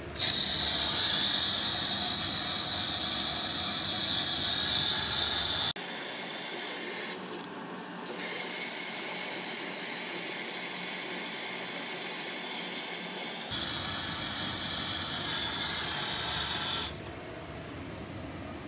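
Kitchen faucet with a spray aerator running into a stainless steel sink, the spray hissing over a bunch of green onions as they are rinsed. It is turned on just after the start, dips for about a second some seven seconds in, and is shut off abruptly about seventeen seconds in.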